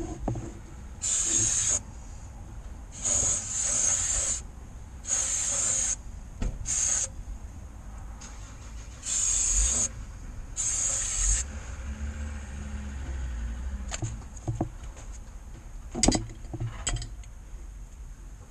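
Aerosol cleaner spray can hissing in about seven short bursts, each under a second, as the engine block around the crankshaft oil seal is degreased so it is dry and free of oil. A sharp knock about sixteen seconds in.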